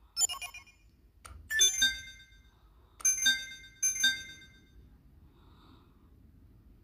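Electronic chime sound effects from a star-map app's interface, as a star is selected and the view zooms in on it. There is a short chime, then a click and a brighter chime about a second and a half in, then two matching chimes about three and four seconds in.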